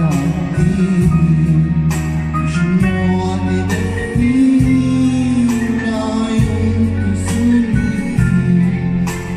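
Arabic pop song: a male voice singing over an instrumental backing track with sustained bass notes.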